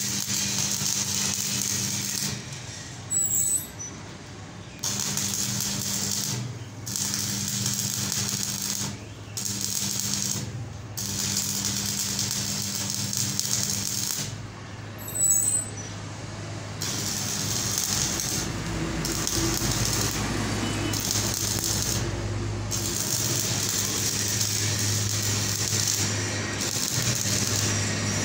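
Electric arc welding crackling and hissing as weld metal is built up on the end of an electric motor's rotor shaft, ready for turning it back to size. The arc stops and restarts several times, over a steady low hum.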